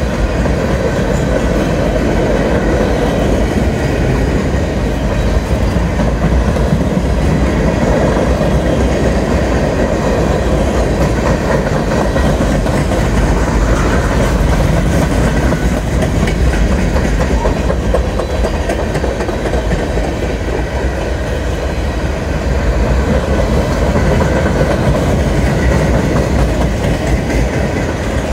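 Freight train boxcars rolling past: steel wheels on rail giving a steady rumble with clickety-clack.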